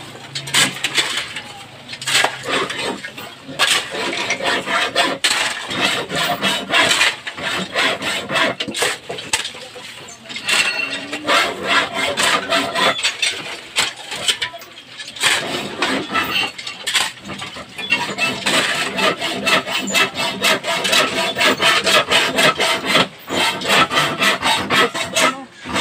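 A hammer chipping away at concrete hollow blocks, then a hand hacksaw cutting steel rebar in quick, even back-and-forth strokes.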